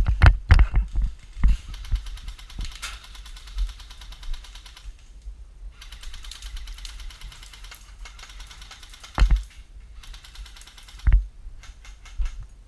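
Airsoft gun firing in two long rapid bursts of fast, even clicking, each about three seconds long, with a few heavy thumps around them.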